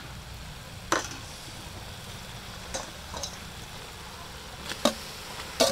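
Metal spatula scraping and knocking against a metal wok while squid pieces are stir-fried, giving a few sharp clacks: one about a second in, a couple around three seconds, and two near the end. Under them, a faint steady sizzle of the frying squid.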